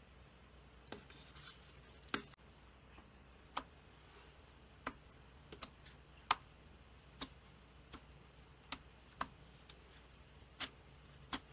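Fingers poking and pressing into soft slime, giving a string of sharp little pops and clicks, roughly one a second and irregularly spaced, over a faint steady hum.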